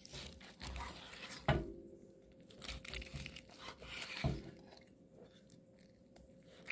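Long carving knife slicing through a grilled beef short rib on a wooden board: quiet tearing and crunching of the seared crust, with two sharper knocks, about a second and a half in and again near four seconds.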